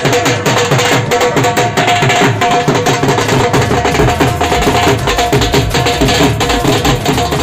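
Punjabi dhol drum beaten with sticks in a fast, driving rhythm, with a held tune sounding over the drumming.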